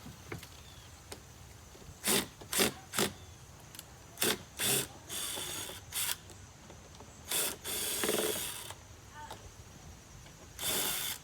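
Cordless drill run in short bursts, backing screws out of a dryer vent cover: several brief trigger pulls, then a few longer runs of about a second each.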